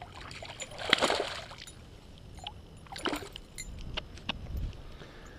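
Water splashing and sloshing beside a kayak, loudest about a second in and again about three seconds in, with a few light clicks near the end.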